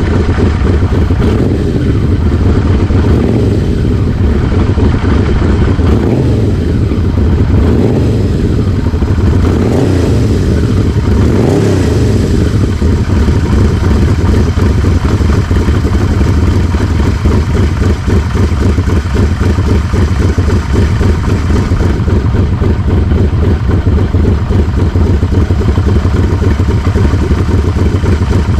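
Yamaha V-Max 1200's V4 engine running through a Super Trapp slip-on muffler, blipped several times in the first twelve seconds or so, then settling to a steady idle with a deep exhaust note.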